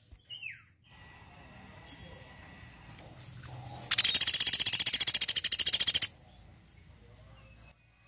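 Sunda pygmy woodpecker calling: a faint short call near the start, then a loud, rapid, high-pitched trill of evenly repeated notes lasting about two seconds, starting about four seconds in.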